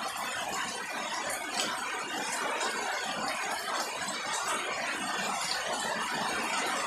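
Steady rain falling on garden foliage and wet ground, an even hiss with scattered faint drip ticks.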